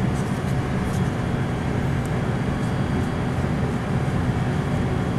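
Steady low mechanical hum of running machinery, with a few faint light taps.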